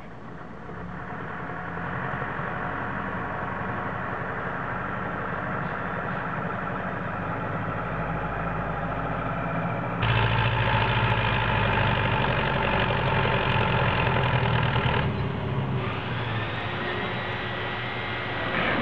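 Diesel engines of a Zetor 7245 tractor and a Scania lorry running together as the tractor tows the lorry stuck in mud. The engine noise builds over the first couple of seconds, jumps louder and shifts abruptly about ten seconds in, and changes again around fifteen seconds.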